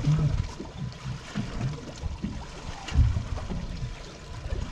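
Wind buffeting the microphone in low, uneven rumbles, with water lapping against a small boat's hull; the strongest gust comes about three seconds in.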